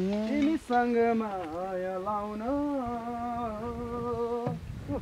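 A person's voice singing a slow tune in long held notes, with a dip in pitch about a second and a half in and a step up about two and a half seconds in. The singing breaks off about four and a half seconds in.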